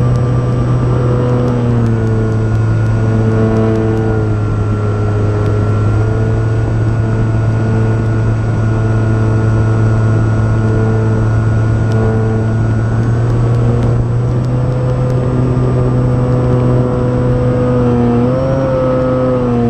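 The E-flite Timber RC plane's electric motor and propeller, recorded from a camera mounted on the plane in flight: a steady loud drone with a motor whine that steps up and down in pitch as the throttle changes, rising briefly near the end.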